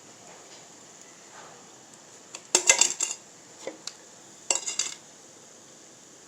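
Utensils clinking against dishware in two short clusters of clicks, about two and a half and four and a half seconds in, with a few lighter taps between.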